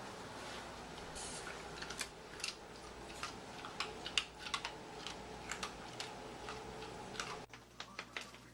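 Irregular light clicks and taps, typical of a dog's claws on a hard floor as it walks about, over a low steady room hum that drops away suddenly near the end.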